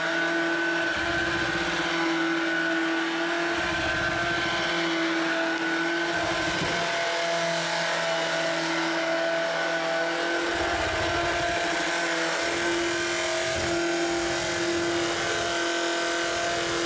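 Shark Rocket Pet Pro cordless stick vacuum running at full speed: a steady high motor whine over a rush of air, with a low rumble that comes and goes.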